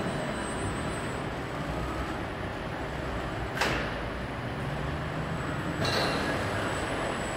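A robotic crate-palletising cell running: a steady mechanical hum from the ABB robot arm and roller conveyor. A sharp burst comes about three and a half seconds in, and another sudden sound near six seconds.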